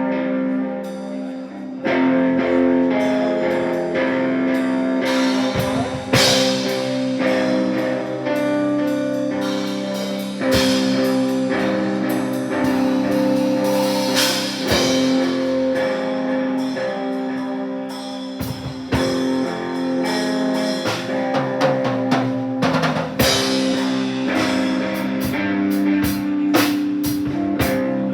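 A rock band playing live: electric guitar holding ringing chords over a drum kit, with the drum hits coming thick and fast near the end.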